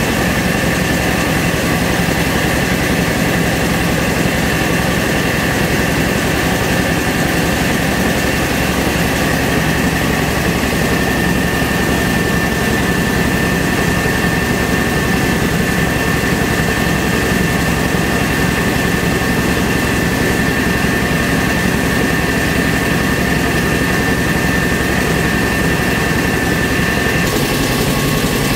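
Mobile rice mill (huller and polisher) running steadily at full work, a loud even machine noise with a constant high whine over a low hum, while milled rice comes out of the chute.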